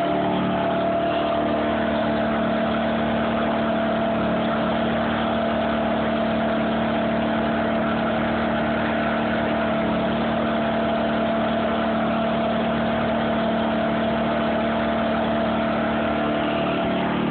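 Ryobi 14-amp miter saw running on power from a Champion 2000 inverter generator: a steady motor-and-engine drone that holds one pitch, without revving up or winding down.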